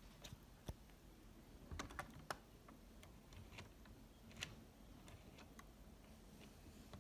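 Faint, scattered clicks and light taps of handling: a few small knocks near the start, a cluster of clicks around two seconds in, and one more at about four and a half seconds, with near silence in between.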